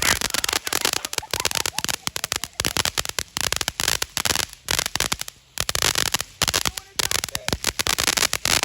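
Firecrackers going off in a dense run of rapid, irregular pops and crackles, with a brief lull about five and a half seconds in.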